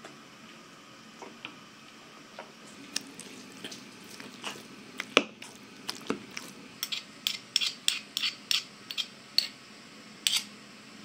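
Metal spoon stirring a thick lentil and eggplant mash in a glass bowl, clinking and knocking against the glass. The clinks are scattered at first, with one loud knock about five seconds in, then come quicker, about three or four a second, in the second half.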